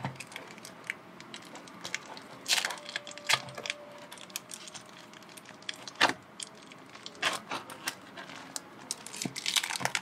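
Tape-wrapped paper bundle being cut and pulled open with a knife blade: crinkling paper and tape with scattered sharp clicks and a few louder crackles and rips.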